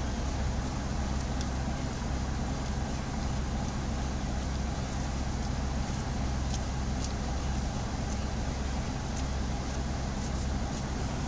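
Class 33 diesel locomotive 33103's Sulzer eight-cylinder engine running steadily as the locomotive creeps slowly along the platform.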